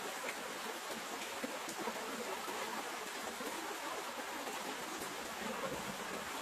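Steady rainfall, an even hiss with no let-up.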